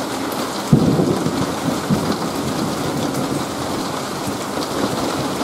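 Heavy rain falling steadily in a thunderstorm. About a second in, a sudden thunderclap breaks in and rumbles on for about a second.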